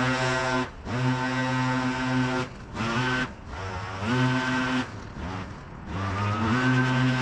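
Gas engine of a leaf vacuum running steadily. Three times it drops away and then climbs back up in pitch: just under a second in, around three seconds in, and from about five to six seconds in.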